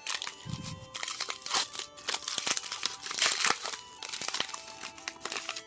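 Foil Pokémon booster pack wrapper being crinkled and opened by hand, a run of irregular crackly rustles, with faint background music underneath.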